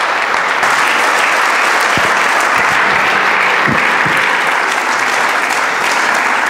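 Audience applauding steadily, a large crowd clapping together.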